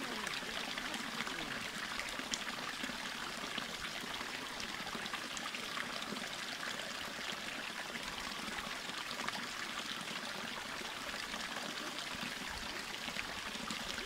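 Natural freshwater spring trickling steadily over rocks into a shallow pool, a continuous flow with many small splashes.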